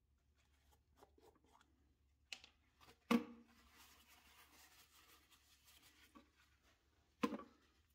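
Quiet workshop handling sounds: a few sharp knocks as a plastic jar of polishing paste is handled and set down on the lathe headstock, the loudest about three seconds in and another near the end, with faint rubbing in between.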